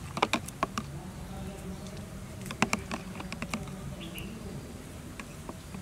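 Metal spoon clicking and scraping against the side of a pot while stirring a liquid jelly mixture, in two quick clusters of taps, over a steady low hum.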